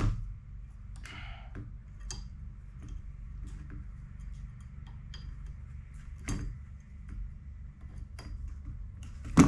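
Scattered light metallic clicks and taps of the handle and its pins being fitted to a log splitter, with a sharper knock near the end, over a steady low hum.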